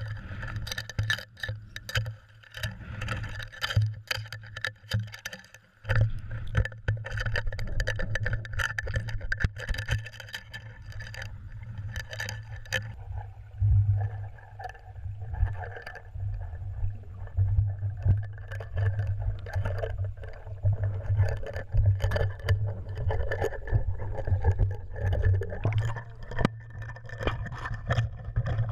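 Muffled underwater sound from an action camera in its waterproof housing, mounted on a cod jigger. A steady low water rumble runs throughout, with many clicks and knocks during the first dozen seconds. After that it settles into a more even rush as the jigger is hauled up toward the surface.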